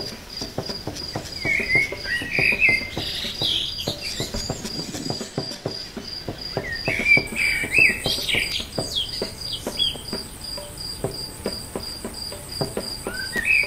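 A cricket chirring steadily while birds chirp in short bursts, twice. Many small clicks and rustles of grass stalks run throughout.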